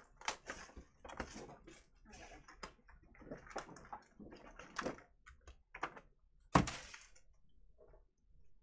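Foil wrappers of 2020 Panini Prizm Draft Picks trading-card packs being handled and torn open by hand: irregular crinkling and crackling rustles, with one louder, sharper crackle a couple of seconds before the end.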